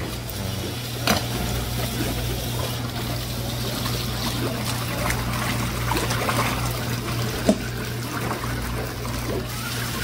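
Tap water running and splashing into a plastic basin as sliced raw fish is swished and washed by hand. A couple of sharp knocks stand out, the louder one about seven and a half seconds in.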